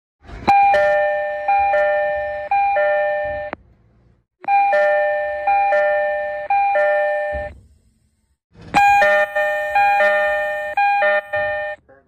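Tokyo Metro 18000 series train door chime sounding three times in a row. Each round is a short run of ringing chime notes lasting about three seconds.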